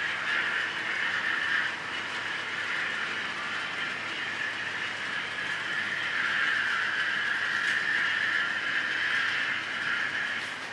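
A long string of HO scale hopper cars rolling along model track with a steady rushing whir of small wheels on rail, swelling a little midway and easing near the end.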